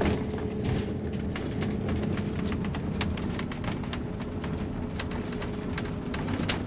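Raindrops ticking irregularly on a camper van's windscreen and roof over the steady drone of its engine and tyres as it drives slowly on a wet road.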